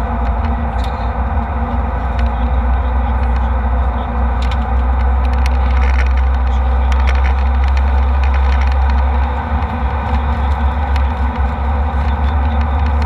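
Jet airliner cabin noise in flight: a steady engine and airflow roar with a deep rumble and a faint hum, and light rattles now and then.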